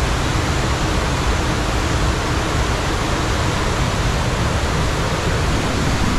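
Water rushing loudly and steadily inside a small rock grotto.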